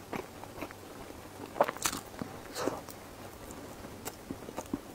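Close-up chewing of soft, moist squid-ink mochi bread with pork floss: scattered small wet mouth clicks and smacks, with no crunch.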